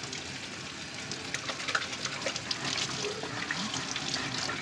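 A spoon stirring seasoned melted butter in a bowl: a liquid swishing with scattered light clinks against the bowl.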